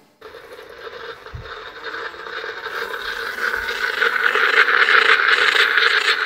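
Hiss and crackle from the surface of an old Edison Bell gramophone record, fading in and growing steadily louder. It has the thin, narrow sound of an early acoustic recording.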